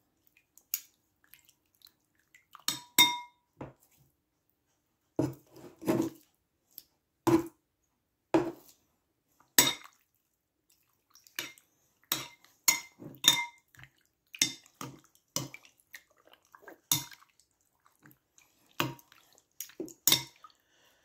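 Metal kitchen tongs clinking against a glass bowl while tossing raw chicken in marinade: irregular sharp clinks, a few of them ringing briefly.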